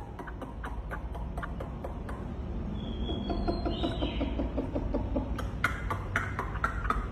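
A wambi songbird calling in a series of sharp clicks, with a brief high whistle about three seconds in and a denser run of louder clicks near the end.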